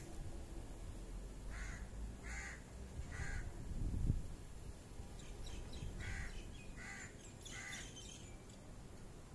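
A bird calling from the tree canopy: six separate calls in two sets of three, with a pause between the sets. A low rumble on the microphone swells about four seconds in.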